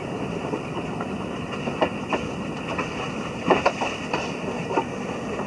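Steady rushing of wind and heavy breaking surf, with irregular sharp knocks on top, a few in quick succession about three and a half seconds in.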